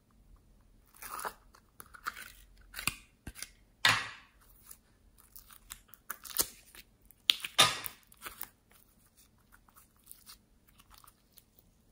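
Sticky glitter jelly slime being squeezed and stretched by hand, making irregular wet clicks and pops, with a few louder ones about four seconds and seven and a half seconds in.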